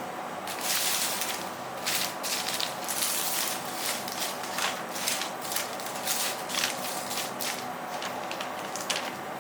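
Metal spatulas scraping over a frozen ice-roll plate in repeated short, irregular strokes, working and rolling up the ice cream.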